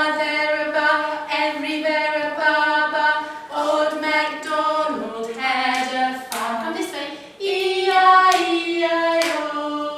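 Singing: a simple, slow melody with long held notes, sung by a high voice, with a few sharp clicks or claps in the second half.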